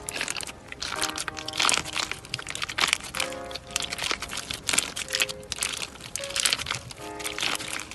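Clear slime packed with hard beads being squeezed and kneaded by hand, giving a dense run of crackles and crunches. Soft melodic background music plays alongside.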